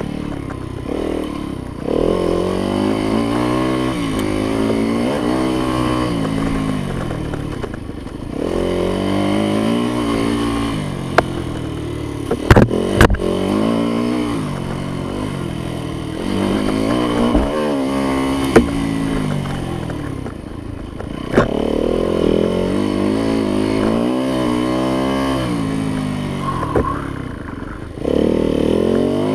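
Yamaha YZ dirt bike engine under riding load, the throttle opening in repeated surges about every six seconds, its pitch sweeping up and then sagging between them. A few sharp knocks and clatters come in the middle.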